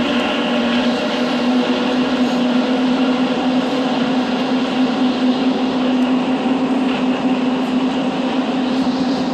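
Montreal Metro rubber-tyred train running, a steady loud motor tone over the rolling rumble of the car.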